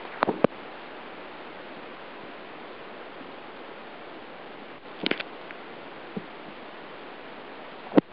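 Underwater sound of a stream: a steady rush of flowing water, with a few sharp clicks and knocks. Two clicks come just after the start, a short cluster about five seconds in, and the loudest one near the end.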